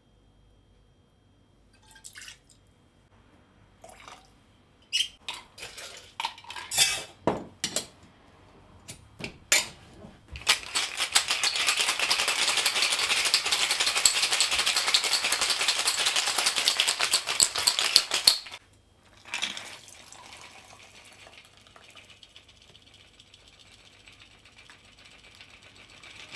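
Clinks and knocks of a bottle, jigger and steel cobbler shaker being handled and closed. Then about eight seconds of a fast, even rattle as the cocktail shaker is shaken hard, and after it a soft steady trickle of the drink pouring from the shaker into a glass.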